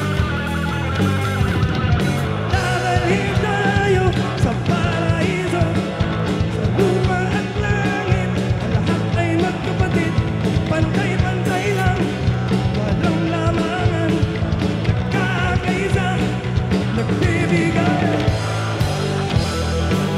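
A rock band playing live and loud, with electric guitars, bass and a drum kit all going at once.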